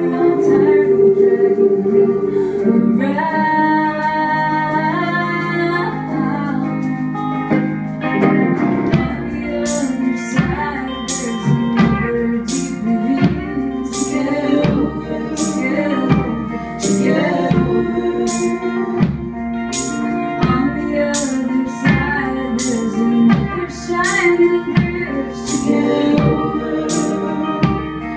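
A live band playing a song, with electric guitar and strummed strings. About nine seconds in the drum kit comes in and keeps a steady beat of kick drum and cymbals.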